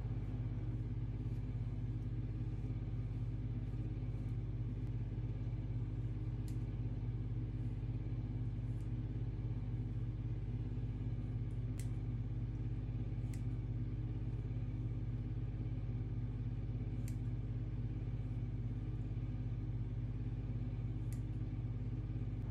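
A steady low hum throughout, with a handful of faint, sharp snips of dull scissors cutting hair scattered through it at uneven intervals.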